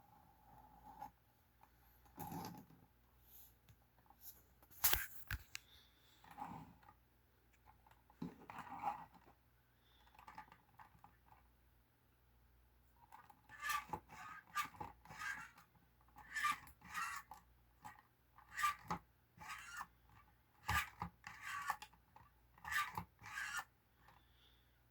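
Faint, irregular clicks, taps and short scrapes of small parts being handled, coming thicker and faster in the second half.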